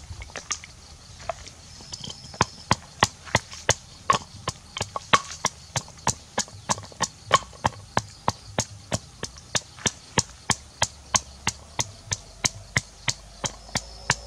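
Wooden pestle pounding ingredients in a wooden mortar. A few knocks at first, then a steady beat of sharp knocks, about three a second.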